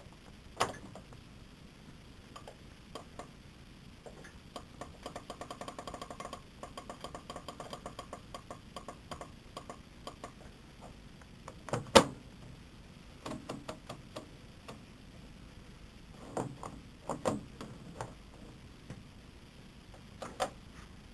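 Clicks and knocks from handling a Neff washing machine before its spin starts. A run of quick ticks lasts about five seconds, then comes a handful of separate knocks, the loudest about halfway through.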